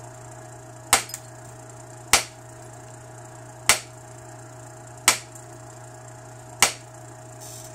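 Antler billet striking the edge of an obsidian preform: five sharp clicks about a second and a half apart, each knocking off a short flake.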